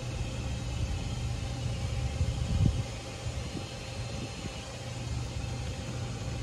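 Steady low mechanical hum of workshop background noise, with a single low thump about two and a half seconds in.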